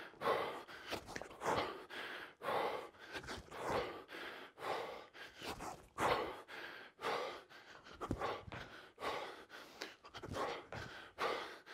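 A man breathing hard and panting, a sharp breath roughly every second, out of breath from bodyweight squats and tuck jumps.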